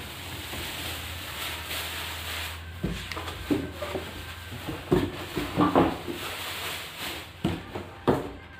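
Plastic bag rustling and crinkling as it is pulled off a PC case, followed from about three seconds in by scattered knocks and thumps from handling the case and its cardboard packaging.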